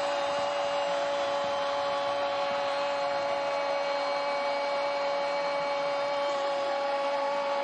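Steady stadium crowd noise after a goal, with a drone of several held tones over an even rushing noise.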